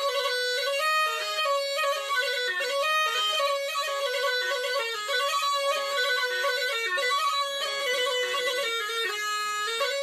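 Instrumental folk music: a reedy wind instrument plays a fast, ornamented melody.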